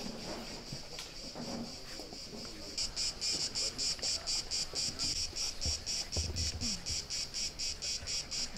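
Cicadas buzzing in the trees: a steady high buzz that turns, about three seconds in, into a louder pulsing buzz at about five pulses a second.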